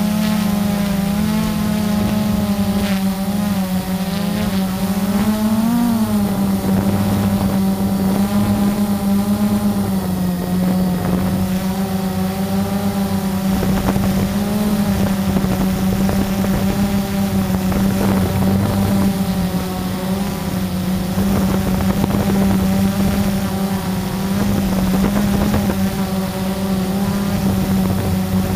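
Blade 350 QX quadcopter's brushless motors and propellers buzzing steadily, close to its onboard camera, the pitch wavering with the throttle and rising briefly about six seconds in.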